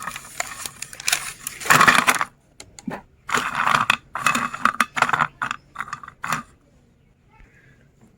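Hard candies clattering and crunching in a meat grinder, in a string of irregular crackling bursts with sharp clicks that stop about six and a half seconds in.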